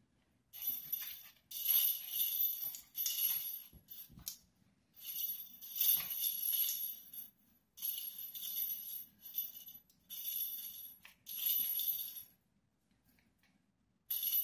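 Small bells inside a cat toy's plastic balls jingling in repeated bursts as a puppy jumps at, bites and swats them. The bursts pause for about two seconds near the end, then start again.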